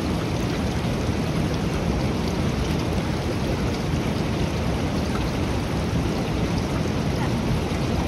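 Steady rushing of the swollen, muddy Siang River.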